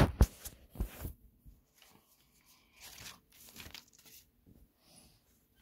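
Crackling rustle of handling noise as fabric and paper rub and brush against the microphone: a dense burst of crackles in the first second, then faint scattered rustles.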